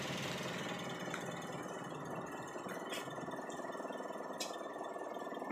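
Toyota VVT-i car engine idling with the AC compressor running while the system is charged with refrigerant through manifold gauges. A steady high tone runs through it, with a few light ticks.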